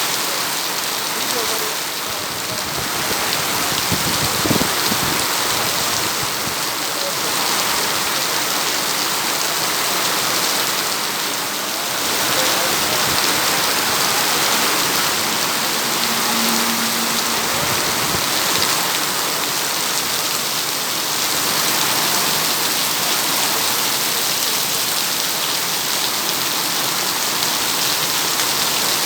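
Heavy rain falling steadily, with slow swells in its loudness as gusts of wind drive it.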